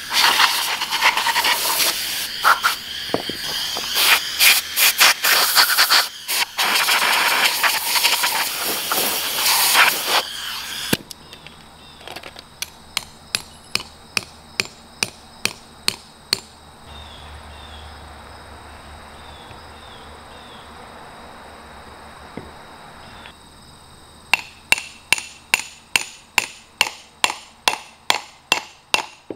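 A loud hiss with rapid rattling knocks, then hammer blows driving an anchor bolt through a 6x6 sill-plate block into a hole drilled in concrete. There are about a dozen sharp taps, a pause, and then a quicker run of strikes near the end.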